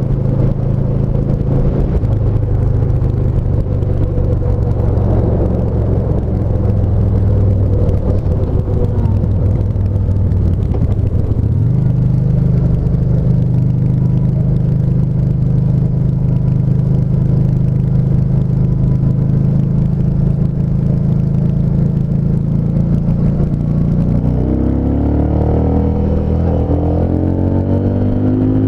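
Yamaha SCR950's air-cooled V-twin running at a steady cruise. Its note steps up about twelve seconds in, then climbs steadily near the end as the bike accelerates hard.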